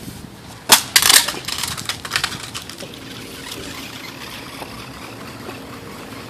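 Toy RC car crashing: a sharp knock, then a loud clatter and rattle that dies away over a second or two.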